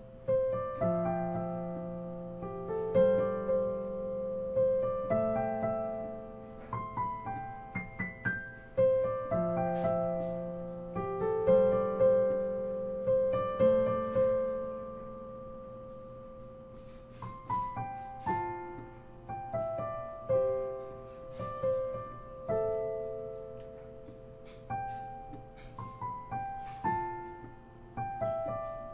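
Digital piano played with both hands: held chords under a melody, each note struck and left to ring and fade.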